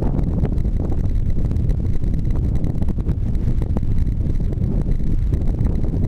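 Wind buffeting the camera microphone: a steady, loud low rumble with no other distinct sound.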